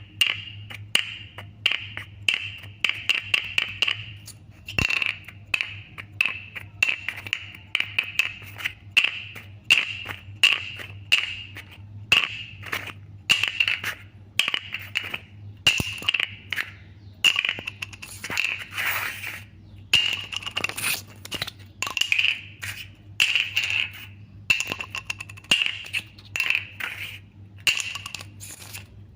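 Plastic bottle cap being flipped and tossed about by hand: repeated sharp clicks and rattles against a hard surface, coming in quick clusters about once a second.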